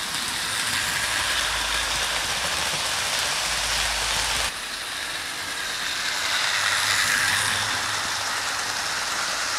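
OO gauge model GWR Castle class locomotive and its coaches running along the track: a steady rushing rattle of motor and wheels. The low rumble drops out abruptly about halfway through, then the sound swells as the coaches pass close and eases off near the end.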